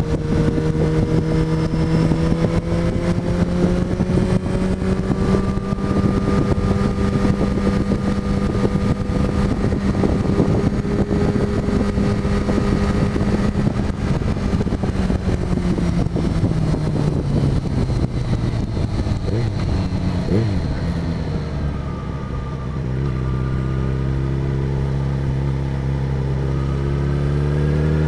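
Yamaha motorcycle engine running at steady cruising speed with wind noise. About two-thirds of the way through, the engine note drops as the bike slows down, and near the end it starts to rise again as the bike accelerates.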